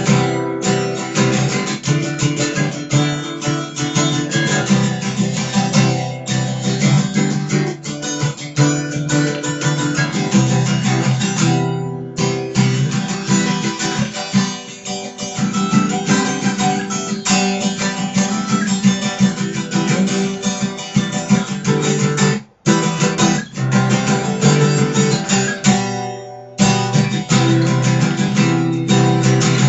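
Archtop guitar being played, chords and notes struck in a continuous run with two short breaks in the last third.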